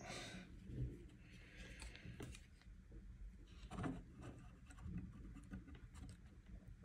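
Faint clicks and rustling of hands handling a Raspberry Pi 5 board and its small case fan while pressing the fan's cable connector onto the board, with a handful of small scattered clicks, the clearest about four seconds in.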